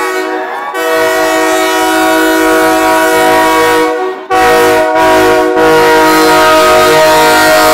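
Passing steam train's whistle sounding a steady chord in four blasts: a long one, two short ones, then another long one.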